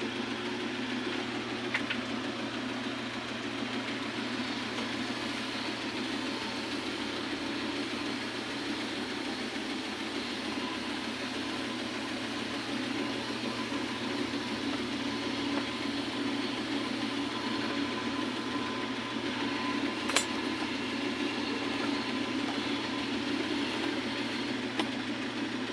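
A steady motor hum that does not change, with one sharp click about twenty seconds in.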